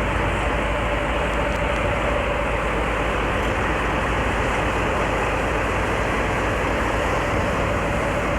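A train running, with a steady noise and a faint steady tone held throughout.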